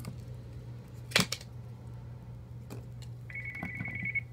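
A telephone ringing near the end, a fast-trilling electronic ring lasting about a second. About a second in there is a single sharp click, and a steady low hum runs underneath.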